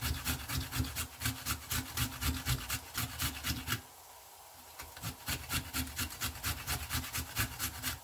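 Food being grated on a small handheld metal grater: quick rasping strokes, about five a second, pausing briefly about four seconds in and then resuming at the same pace.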